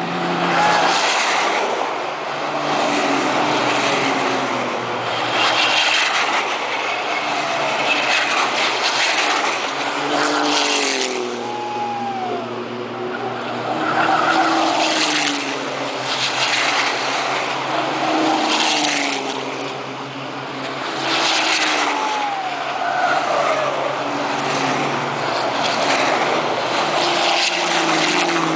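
Formula Truck racing trucks' turbo-diesel engines going by one after another on the circuit. The engine note rises and falls as they rev through the gears, and the sound swells each time a truck passes.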